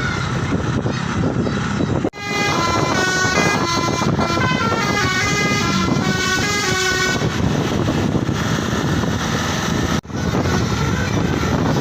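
A tour bus's telolet horn, a multi-tone musical air horn, playing a quick stepping tune of short notes over the bus's engine and street noise. The sound breaks off abruptly about two seconds in and again near the end.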